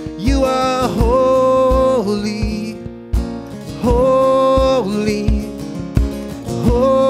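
Live worship music: a man sings long held notes over a strummed acoustic guitar, with small drums thumping a steady beat.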